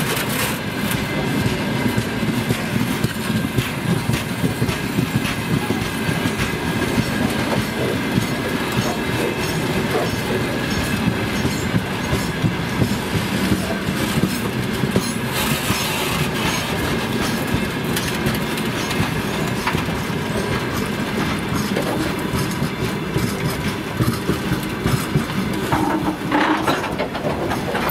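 Freight train of open gondola wagons rolling past close by: a steady rumble with wheels clacking rhythmically over the rail joints, briefly sharper and brighter around the middle and again near the end.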